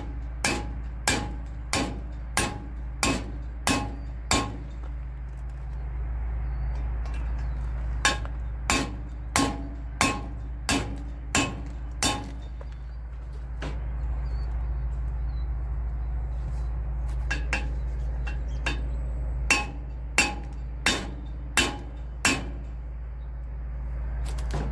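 Hammer striking a steel bushing driver, driving a new kingpin bushing into a truck's steering knuckle: sharp, ringing metal-on-metal blows, evenly spaced at about one and a half a second, in three runs with pauses between.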